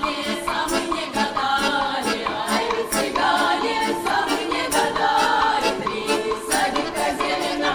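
Folk choir of men and women singing together, over a steady beat of sharp percussive strikes about twice a second.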